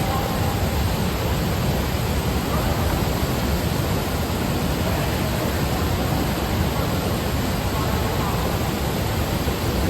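Waterfall on the Katashina River: a steady, loud rush of falling and flowing water.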